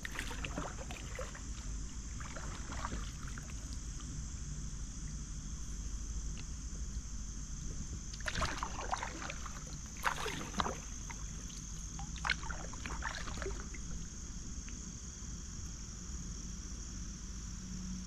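Kayak paddle strokes splashing and dripping in river water, with a few louder clusters of strokes about halfway through, over a steady low wind rumble on the microphone.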